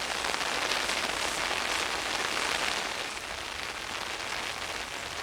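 Steady rain falling and pattering on the garden, easing slightly about three seconds in.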